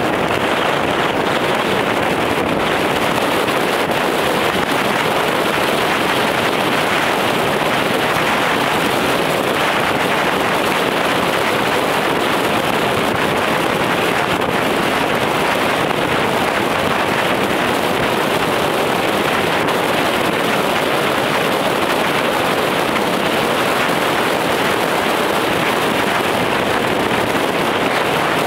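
Steady rush of road and wind noise from a car driving at speed, even and unchanging throughout.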